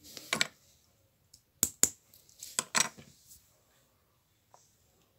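Small plastic Lego pieces being handled and pressed together: a short rustle, then several sharp clicks and knocks in the first three seconds, and one faint click near the end.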